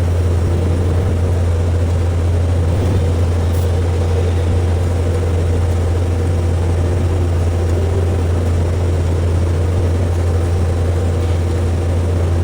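CNC fabric cutting machine running with a steady low hum and even mechanical noise that does not change.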